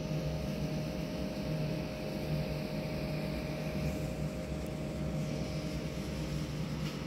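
Steady machine hum with a faint steady tone, unchanging throughout.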